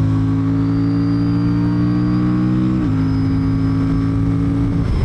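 Aprilia Tuono 457 twin-cylinder engine pulling at steady revs under a light throttle, with an airbox-like intake sound. Its note creeps up and then drops in pitch about three seconds in as it short-shifts up a gear, holds again, and eases off near the end.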